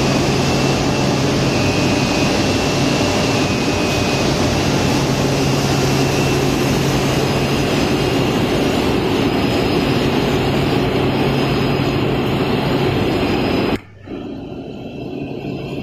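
Cling film factory machinery running: a steady, loud mechanical drone with a low hum. It cuts out sharply for a moment near the end and returns quieter and duller.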